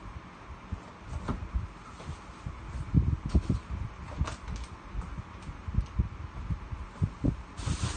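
Dull thumps and knocks of packed goods being lifted out of a large cardboard box and set down, the cardboard knocking as things are handled, with a rustle starting near the end.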